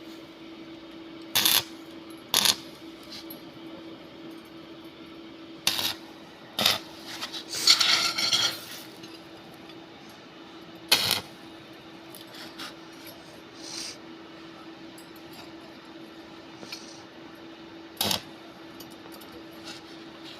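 Metal being handled in a welding workshop: scattered sharp clinks and knocks, with a short rattling cluster near the middle, over a steady hum.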